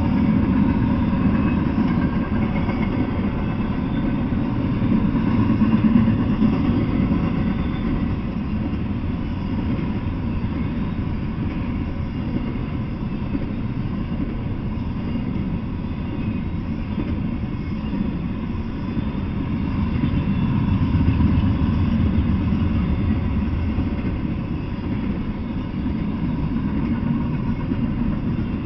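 Double-stack intermodal freight train's well cars rolling past: a steady low rumble of steel wheels on rail that swells and eases a little.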